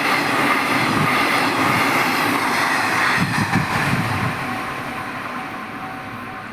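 Sanyo Electric Railway train passing through without stopping, loud at first and fading away over the last two seconds or so.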